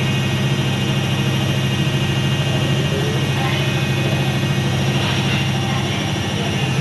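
IFB washing machine in its spin cycle, making a loud, steady low hum with a fast flutter.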